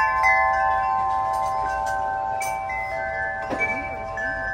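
A hanging metal-tube wind chime, set going by hand through its wooden wind catcher, rings with several sustained, clear tones of different pitches. The tubes are struck again about three and a half seconds in.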